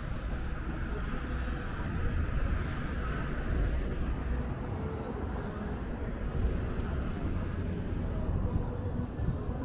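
Downtown street ambience: a steady rumble of car traffic.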